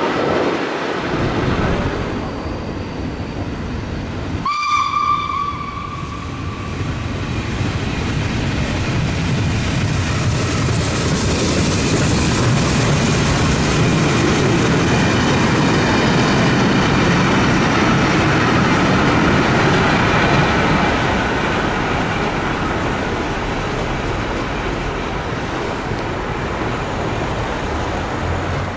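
A train rumbling and clattering past on the rails. About four and a half seconds in, it gives one short, high-pitched signal blast.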